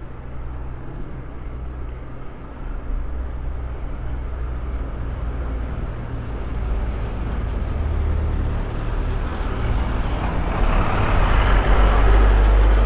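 Road traffic noise with a low rumble, growing louder over the last few seconds as a motor vehicle comes close.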